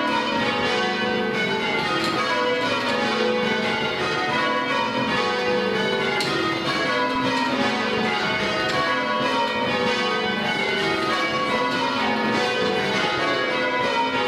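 The Swan Bells, a ring of tower bells, change ringing: bells struck one after another in a continuous, even stream, their notes stepping through the ring in shifting orders that keep repeating.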